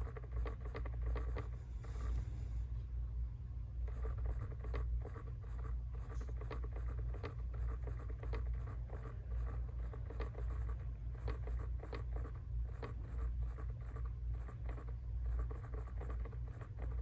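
Blend door actuator behind the glove box of a Jeep Wrangler JL clicking rapidly, in runs of several ticks a second with a short pause about three seconds in, over a steady low hum. The clicking is the sign of a faulty blend door actuator.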